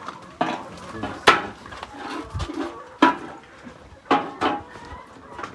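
A shovel scraping and knocking on the floor of a poultry house in about five sharp, separate strokes.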